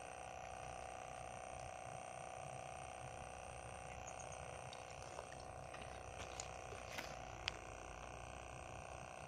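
A faint steady hum, with a few sharp clicks and ticks from about halfway through as a fishing rod and spinning reel are handled. The sharpest click comes near the end.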